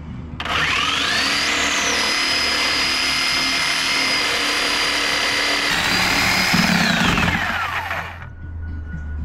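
Electric power tool motor spinning up with a rising whine, running steadily for about six seconds, then winding down with a falling whine and stopping.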